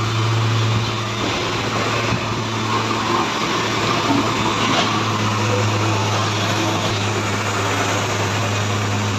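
An engine running steadily, with a constant low hum, over a busy wash of traffic and street noise.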